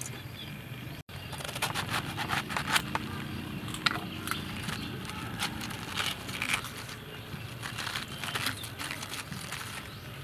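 Head of green cabbage being pried apart by hand, its crisp leaves crackling, snapping and squeaking in many short, irregular crackles.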